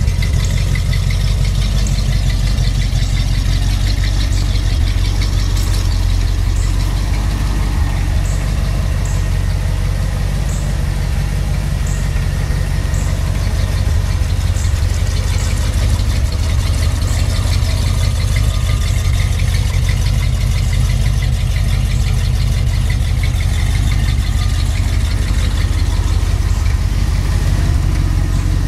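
1970 Mercury Cyclone GT's stock 351 Cleveland V8 idling steadily. Its exhaust runs through turbo mufflers that dump in front of the rear axle, with no tailpipes.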